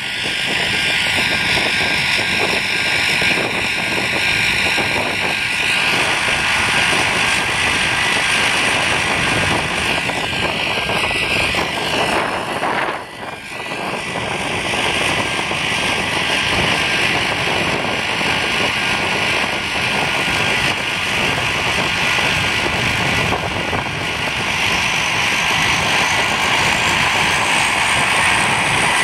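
Twin Otter's two Pratt & Whitney PT6A turboprop engines running on the ground: a steady whine over propeller noise, dropping away briefly about halfway through.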